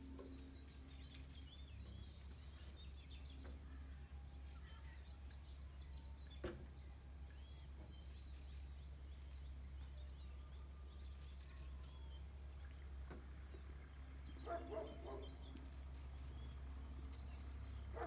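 Faint songbirds chirping and calling here and there over a steady low rumble of outdoor background noise, with one short louder call about fourteen and a half seconds in.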